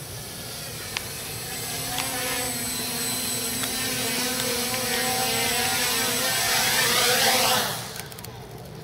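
A 3D-printed tricopter's electric motors and propellers drone steadily in flight, growing louder as it comes in low and close. The drone stops abruptly near the end as it sets down on the grass.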